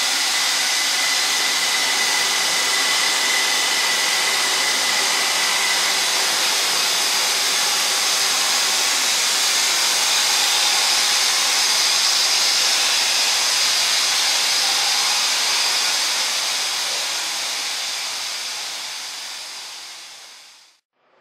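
Steady, loud rushing air noise from an underground station's ventilation system, which the uploader takes for the station's blower; a faint steady high tone runs through the first several seconds. The noise fades out over the last few seconds.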